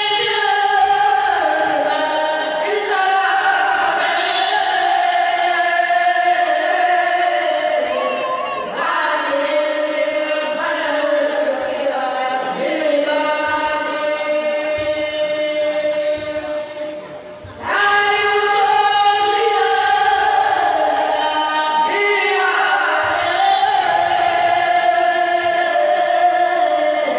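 A kourel, a group of young voices chanting religious verses together in unison, with long held notes that bend and ornament. The chant breaks off briefly about 17 seconds in and starts again.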